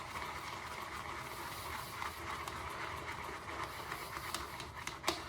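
Synthetic shaving brush working shaving soap into lather, a steady wet swishing hiss with a few faint clicks.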